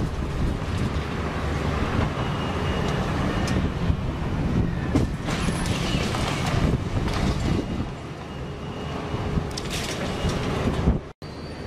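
Wrecking-ball demolition crane at work: a steady mechanical rumble with scattered knocks and faint squeals.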